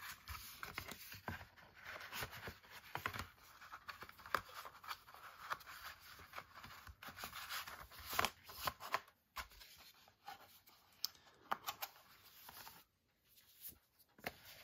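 Cardboard and paper inserts being handled: card sleeves and cards sliding and rubbing against each other, with small taps and clicks. It goes quieter a second or two before the end.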